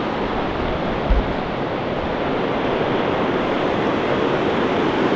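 Shallow, fast river rushing over rocks in a steady roar of water, with a few low thumps of wind on the microphone near the start.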